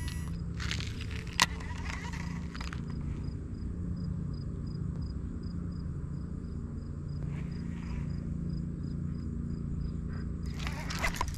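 Baitcasting reel being cranked slowly during a jig retrieve, with faint, even ticks about two or three a second, over a steady low rumble. A single sharp click comes about a second and a half in.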